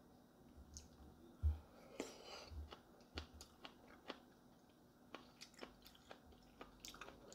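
A person chewing food quietly with wet mouth clicks, and a few soft low thumps in the first half.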